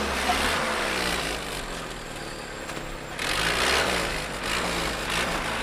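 GAZ-69A jeep's four-cylinder petrol engine running as the jeep drives, its pitch rising and falling with the revs. It grows louder about three seconds in.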